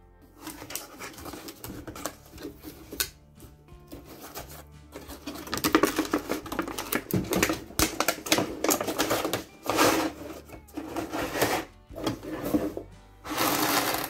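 Cardboard box and plastic packaging being handled and opened: irregular rustling, scraping and crinkling, with the loudest burst near the end.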